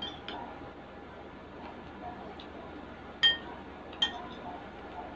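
A metal spoon clinks twice against a ceramic bowl, about a second apart, each strike ringing briefly. Softer ticks and eating sounds lie between.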